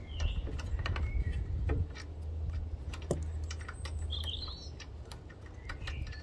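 Irregular light metallic clicks and clinks of a socket ratchet and pump bolts being handled while the pump is unbolted from a petrol pressure washer.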